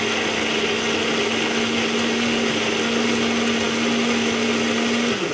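Small personal blender running steadily at one even pitch, pureeing cooked rice and water into a smooth liquid; the motor cuts off near the end.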